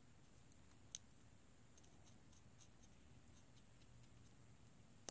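Near silence with faint scratchy ticks of a cotton swab wetted with alcohol scrubbing over an iPhone 6's board and connectors, and one light click about a second in.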